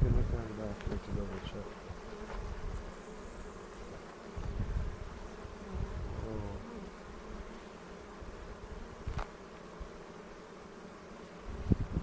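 Honey bees buzzing around an open hive: a steady, many-voiced hum, with a few low rumbles partway through.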